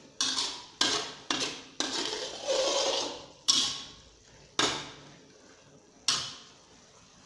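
Metal spatula stirring a soy-sauce gravy in a metal wok: about seven sharp clanks of the spatula against the wok, with a stretch of scraping a little before the middle.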